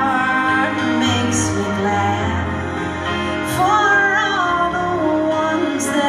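A woman singing a melody live into a microphone over keyboard and band accompaniment, with long held notes that waver in pitch.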